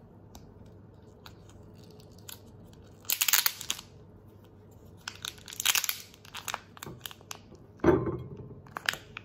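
Thin clear plastic film wrapper crinkling and tearing as it is peeled off a packaged braised egg. It comes in several separate bursts: about three seconds in, again at around five to seven seconds, and twice near the end.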